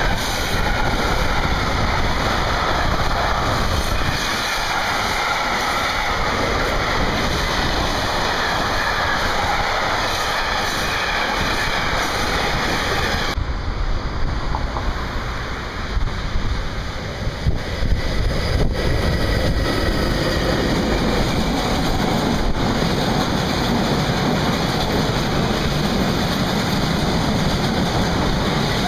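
Freight trains running on the rails: a steady rumble of wheels on track. About halfway through, the sound changes abruptly, and an electric locomotive hauling loaded log wagons approaches and rolls past close by, its low rumble building.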